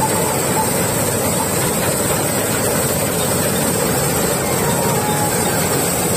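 Malkit 997 combine harvester working in the field, its engine and header machinery running at a loud, steady level as it cuts through dry crop stalks.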